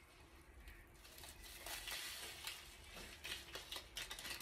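Faint crinkling and light ticking of a small foil seasoning sachet being shaken and tapped out over a pot of soup, starting about a second and a half in.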